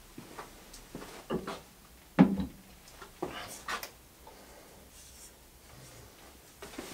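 Scattered light knocks and clacks of a wooden hand plane being set down on a wooden workbench and an articulated desk lamp being swung into place. The loudest knock comes about two seconds in.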